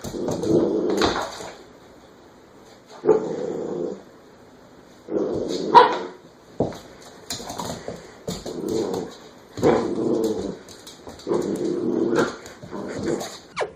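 A dog growling and barking in a series of rough calls, each about a second long with short pauses between.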